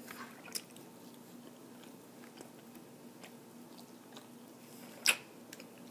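A person chewing mouthfuls of steak, faint, with small clicks of a fork on a plate and one sharp click about five seconds in.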